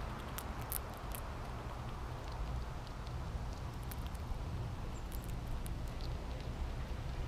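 Irregular small, sharp clicks of an American red squirrel cracking and chewing seeds, over a steady low rumble.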